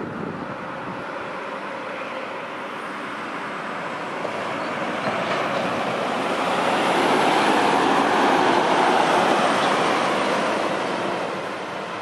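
Heavy bulk tanker truck driving past: engine and tyre noise building as it approaches, loudest about seven to ten seconds in, then fading as it moves away.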